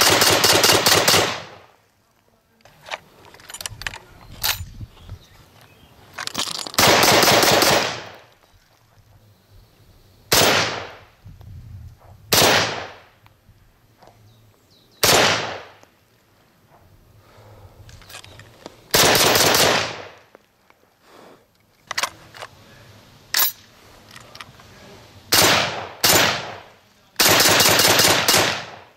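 SKS-45 semi-automatic rifle (7.62×39 mm) firing. Several fast strings of shots, each about a second long, alternate with single shots a couple of seconds apart, and each shot rings out briefly. A few faint clicks fall between the strings.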